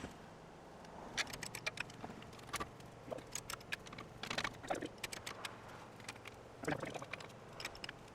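Irregular metal clicks, knocks and short creaks from an engine hoist and its chain as a Cummins 4BT diesel is lifted and eased back off the transmission.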